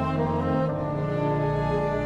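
Solo bassoon with a small orchestra playing a slow, sustained passage of long held notes, with the lower parts moving to new notes about halfway through.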